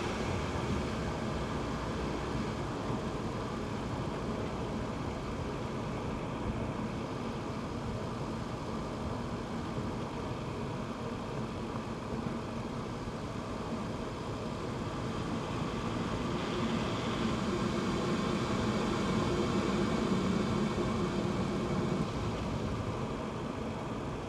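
Audi TT RS turbocharged five-cylinder engine running at light load while cruising, mixed with road noise. The engine note swells for a few seconds past the middle, then eases again.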